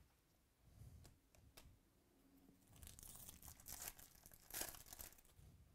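Foil wrapper of a 2018 Topps Chrome baseball card pack being torn open and crinkled, in quiet crackling bursts from about three seconds in. Softer handling of cards comes before it.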